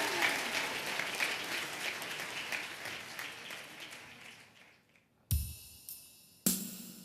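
Audience applause dying away to a brief hush. Then, about five seconds in, a few sharp drum-kit and cymbal strikes open the next song.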